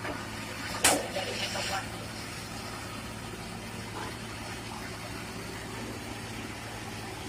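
Excavator's diesel engine running steadily, a low even hum. One sharp knock comes about a second in.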